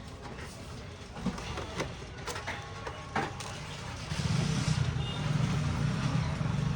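Sparse small clicks and taps of a screwdriver working screws out of a Dell Inspiron 3542 laptop's case. About four seconds in, a steady low engine rumble sets in and stays louder than the clicks.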